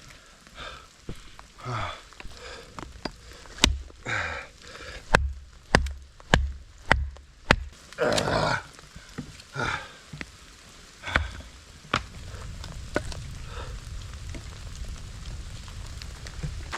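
Wood being broken up for firewood: a series of sharp cracks and knocks, some with a dull thud, and a few short creaks. From about twelve seconds in, a steady hiss of rain.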